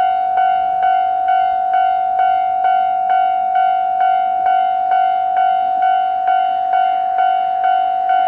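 Japanese railway level-crossing warning bell ringing, one steady bell-like tone re-struck about twice a second, the alarm that warns of an approaching train.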